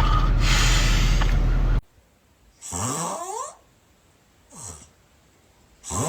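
Snoring. A loud, rough, continuous snore cuts off suddenly about two seconds in. After a pause come separate snores that slide up in pitch, each under a second long, with a shorter, fainter one between them.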